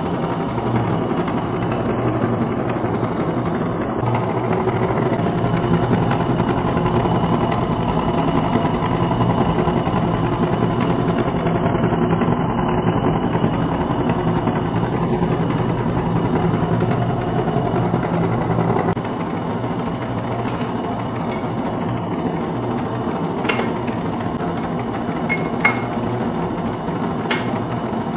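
Small DC electric motor running steadily and belt-driving a car alternator, a continuous mechanical whir and hum. It drops a little in level partway through, and a few sharp clicks come near the end.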